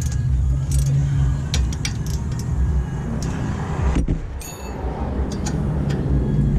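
Steady low mechanical hum with scattered light metallic clicks and clinks of hand tools on the brake parts.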